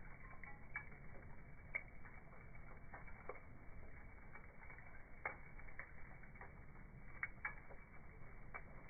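Fire crackling, with irregular sharp pops and snaps over a low hiss, slowed down by slow-motion playback so the pops sound dull and low.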